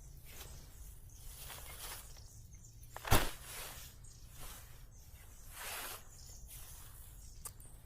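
Repeated rustling and crunching, with one sharp, loud crack about three seconds in.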